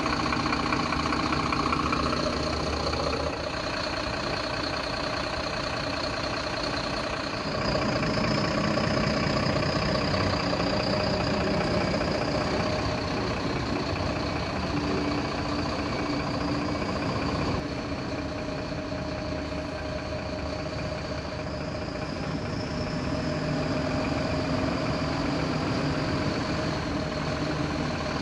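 Diesel engine of a BharatBenz tanker truck running steadily at low revs as the truck creeps forward and turns.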